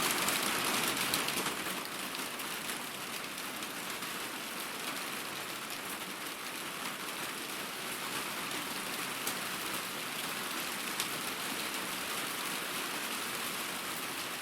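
Heavy rain falling steadily, an even wash of noise with scattered drops ticking through it. It eases slightly over the first couple of seconds, then holds steady.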